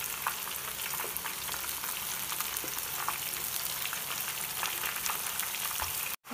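Soya chunks deep-frying in a pan of hot oil: a steady sizzle with many fine crackles, breaking off for an instant near the end.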